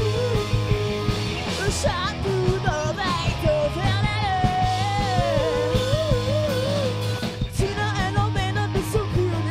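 Live rock band playing, electric guitar under a sung vocal line, with a brief stop about seven and a half seconds in.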